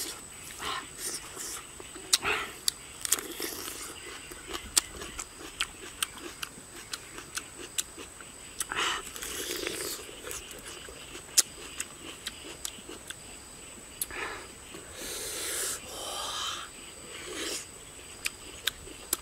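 A man eating close to the microphone: chewing with many sharp wet mouth clicks and lip smacks, and a few long breathy exhalations through the mouth, about nine seconds in and again around fifteen seconds in.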